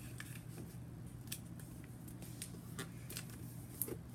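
A square sheet of paper being folded and creased by hand: scattered crisp crinkles and taps, over a steady low hum.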